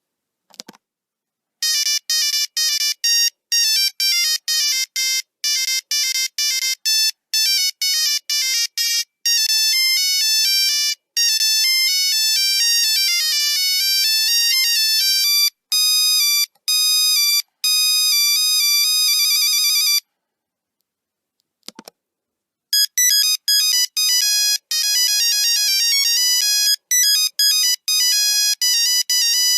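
Nokia 3310 monophonic ringtones: one fast melody of buzzy beeps plays for about eighteen seconds and stops. After a short gap and a click, a second ringtone melody begins. A brief click also comes just before the first melody.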